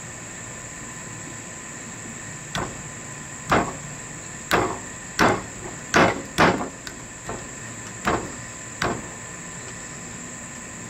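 A run of about nine sharp knocks at irregular spacing, roughly one a second, loudest in the middle of the run, over a steady high cricket chirring.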